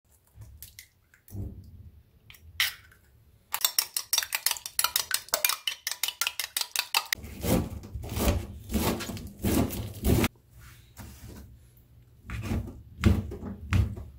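Eggs cracked into a ceramic bowl with a few taps, then a metal spoon clicking quickly and evenly against the bowl as the eggs are beaten, about seven strokes a second. From about seven seconds in, a kitchen knife chops chives on a plastic cutting board, a few strokes a second, and near the end a few louder chops through mushrooms.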